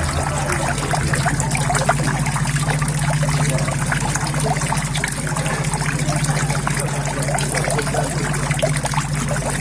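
Water steadily trickling and splashing into a koi pond, with a steady low hum underneath.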